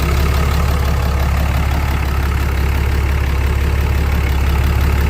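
2017 Ram 3500 pickup's engine idling steadily with a low, even drone, getting slightly louder toward the end.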